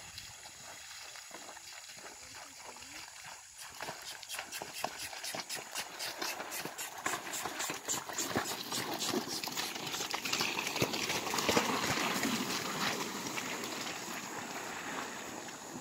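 Wooden dugout canoe being dragged through tall grass and mud: a dense, irregular swishing and scraping of grass against the hull that starts about four seconds in and grows louder as it comes close.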